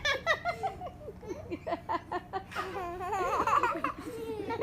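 A baby laughing in short, quick bursts, then a longer, high, wavering laugh about halfway through.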